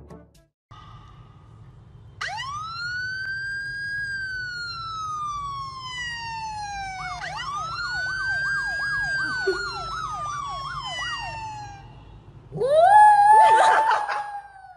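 Police siren sound played from a smartphone: a long rising-then-slowly-falling wail, then a fast warbling yelp. Near the end a small white fluffy dog howls along loudly.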